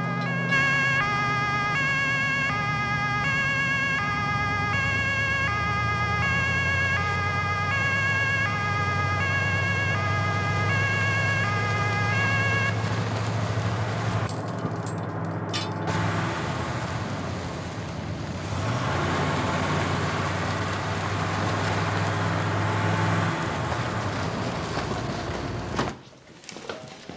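Emergency vehicle's two-tone siren, alternating between a high and a low pitch. It stops about halfway through, leaving low sustained notes and a steady rushing noise.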